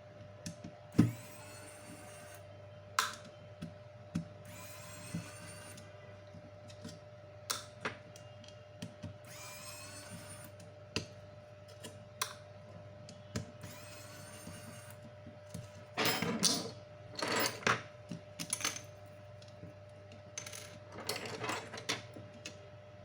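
Tool work on a repair bench: scattered sharp clicks and taps, four scraping or whirring strokes of about a second and a half each, and two longer, rougher scraping passages near the end.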